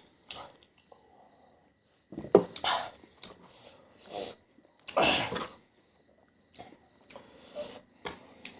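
Close-miked eating sounds: chewing and biting, with a few louder noisy bursts about two and five seconds in.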